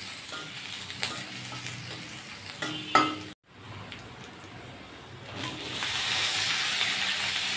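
Onions, green chillies and garlic frying in oil in a kadhai, stirred with a spatula that scrapes and clinks against the pan. After a short break in the sound, chopped vegetables sit in the hot oil and the sizzling grows clearly louder for the last couple of seconds.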